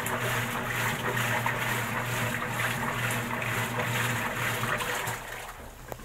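Water rushing strongly into the tub of a top-load automatic washing machine through its repaired inlet valve, with a steady low hum beneath. The rush falls away about five seconds in.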